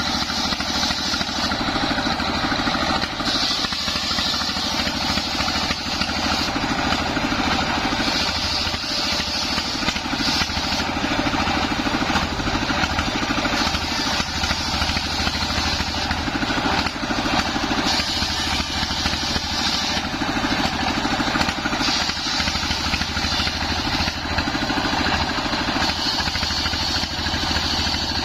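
Stationary single-cylinder diesel engine running steadily, belt-driving a homemade circular-saw bench whose large blade rips through waru wood planks. A higher cutting sound swells in stretches as planks are fed through the blade.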